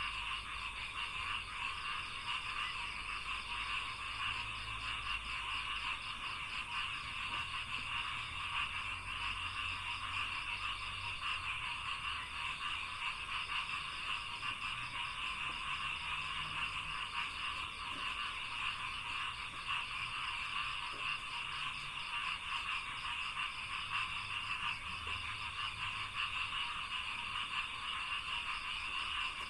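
Chorus of many frogs croaking in a rice paddy: a dense, unbroken din of rapid pulsed calls with no pause.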